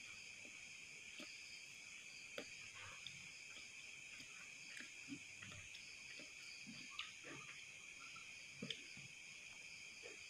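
Near silence with a faint, steady, high chorus of night insects such as crickets, and a few faint soft clicks.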